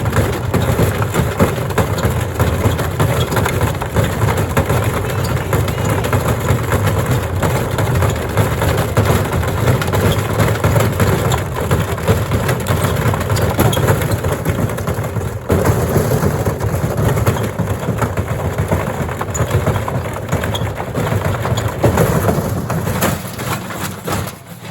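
Gorenje washing machine running with heavy bricks in the drum, giving a continuous loud racket of bricks crashing and the drum banging about from the severe imbalance. It dies away near the end.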